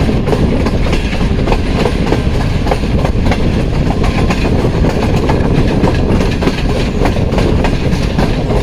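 Passenger train running along the track: a steady loud rumble of wheels with frequent clicks and clacks over the rail joints.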